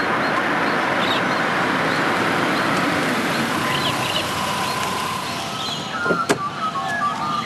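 A car driving up the road and slowing to a stop, a steady rush of engine and tyres that eases off about five seconds in, with birds chirping. A sharp click comes near the end.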